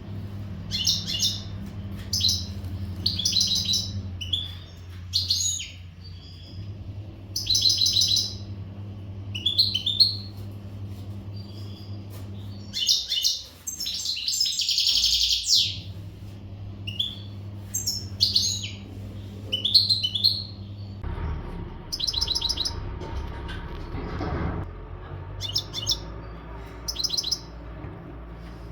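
European goldfinch singing: bursts of quick, high twittering phrases, one longer dense run near the middle, over a steady low hum.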